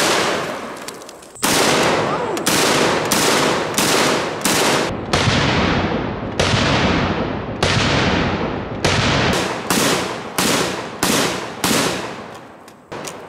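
Street Sweeper 12-gauge revolving-drum shotgun fired in a long string of shots. They come mostly about two a second, with slower spacing of about one a second in the middle. Each blast is followed by a short ringing echo.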